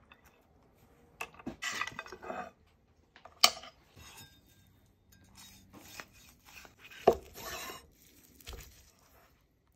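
A large knife carving a smoked rack of lamb into chops on a cutting board: short scraping strokes through the meat, and two sharp knocks as the blade hits the board.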